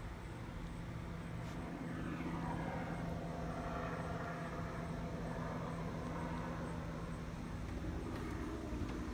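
Light airplane flying overhead, its engine drone sliding down in pitch as it passes, over a steady low hum.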